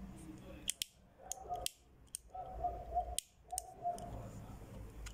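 Guevara twin-jet torch lighter being worked: a series of sharp metallic clicks from its ignition button and snap-open lid.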